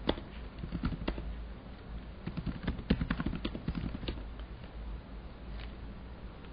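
Typing on a computer keyboard: irregular key clicks for about four seconds, then only a faint steady hum.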